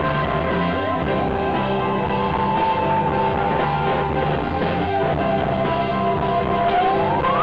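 Live instrumental electronic rock band playing loud through a PA, with drums and bass guitar under a held electronic keyboard tone. The tone slides sharply upward near the end.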